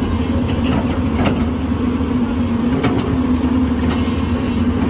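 Hyundai 210 crawler excavator's diesel engine running steadily as it loads fly ash into a tipper truck, with a few faint knocks over the drone.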